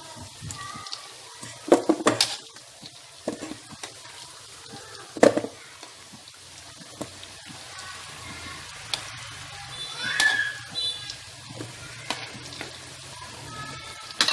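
Taro and sweet potato chunks sizzling in oil in a wok, with metal tongs knocking against the pan as the pieces are turned. The loudest knocks come about 2 and 5 seconds in.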